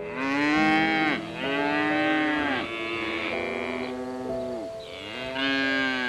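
Cattle mooing in several long calls, each rising and then falling in pitch, with soft piano notes beneath.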